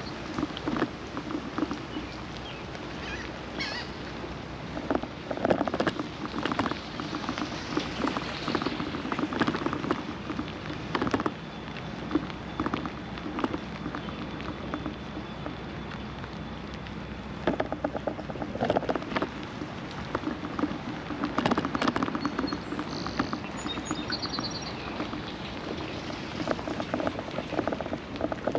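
Rain falling, with an irregular patter of drops close by that swells and eases every few seconds.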